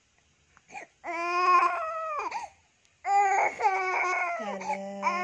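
A baby crying while being massaged: two long, high-pitched wails, the second starting about three seconds in and longer than the first.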